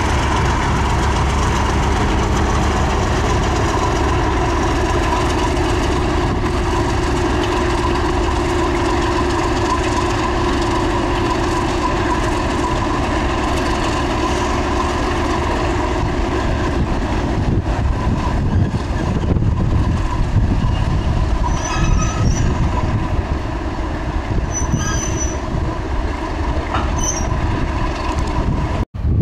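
Class 31 diesel-electric locomotive 31108 running steadily as it moves past, its English Electric V12 engine giving a steady hum. In the second half the wheels click on the track and give a few short high squeals, and the sound cuts off sharply just before the end.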